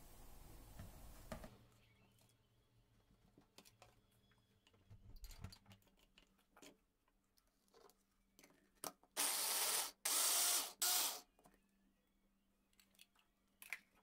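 Kitchen handling noise from a plastic hand-blender chopper and cheesecloth: soft rustling at first, a few small clicks and a soft knock, then three loud, short scraping rubs close together a little past the middle as the motor head and lid are worked off the bowl.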